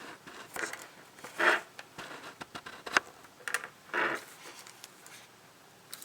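Paper instruction booklet being handled, a handful of short rustles and taps, the loudest about one and a half and four seconds in.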